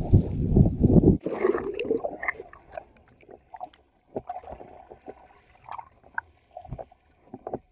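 Sea water rushing and splashing against the side of a boat, cut off abruptly about a second in as the camera is plunged underwater; after that, muffled underwater sound with faint scattered knocks and clicks.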